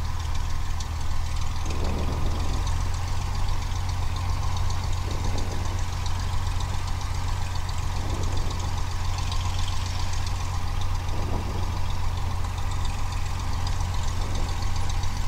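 Cessna 172's piston engine and propeller running at low taxi power, heard from inside the cabin: a steady low drone.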